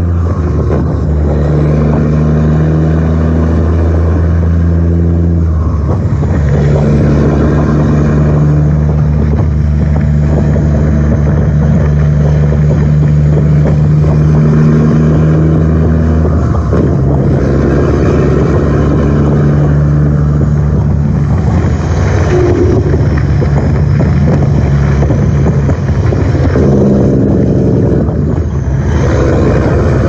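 Heavy diesel truck engine running, a steady low drone whose pitch steps up or down every several seconds, as with gear changes.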